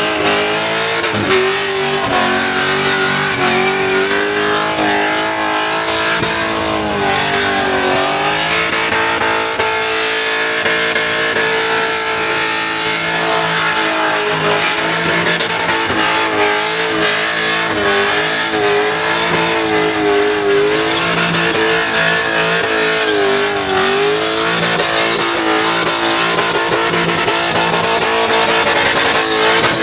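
Supercharged Holden Commodore ute engine held at high revs during a burnout, its pitch wavering and dipping briefly as the throttle is worked, over the hiss and screech of spinning rear tyres.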